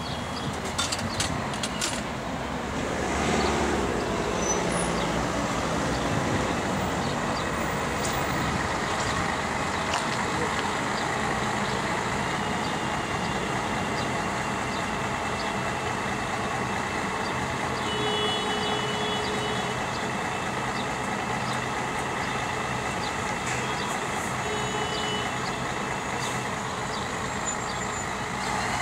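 City bus running close by in street traffic, a steady engine and road rumble that grows louder about three seconds in and holds. A few short faint high tones sound near the middle and again later.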